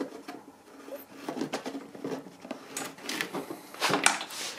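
A bungee cord being unhooked from a red plastic gas can held under an ATV's plastic front fender: light rustling and scraping of cord and plastic, with several sharp clicks in the second half.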